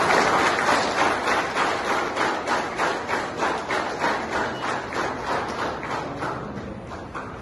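A group of people clapping: a burst of applause that settles into rhythmic clapping in unison, about three or four claps a second, fading out near the end.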